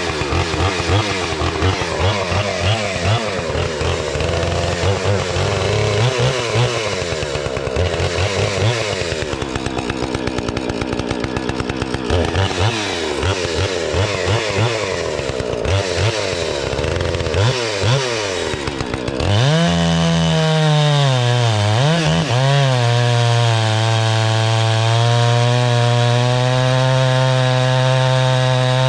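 Two-stroke chainsaw running and cutting wood with a dull chain, its engine speed rising and falling unevenly. About two-thirds of the way through the revs dip and climb, then hold at a steady high note.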